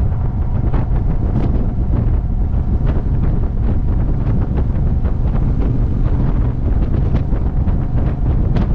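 Wind buffeting the microphone of a camera on a motorcycle riding at highway speed: a loud, steady low rumble with many brief gusty crackles, burying the bike's engine and tyre noise.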